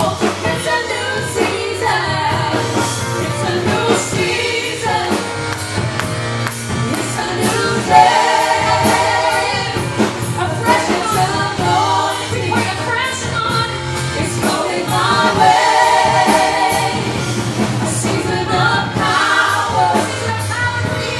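Gospel worship music: voices singing over a band, with a steady beat.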